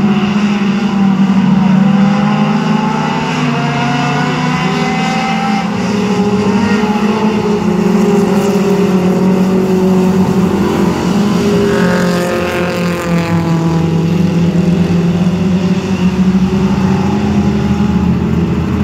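Several mini stock race cars' four-cylinder engines running at racing speed, rising and falling in pitch as they circle. One car passes close by about two-thirds of the way in, its engine swelling and then dropping away.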